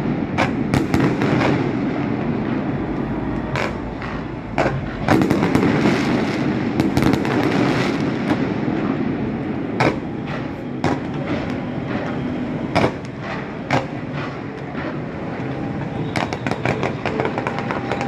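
Fireworks display: repeated sharp bangs over a continuous crackling rumble of bursting shells, with a fast run of crackles near the end.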